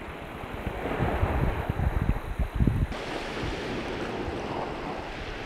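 Wind buffeting the microphone in uneven gusts, over the wash of small sea waves.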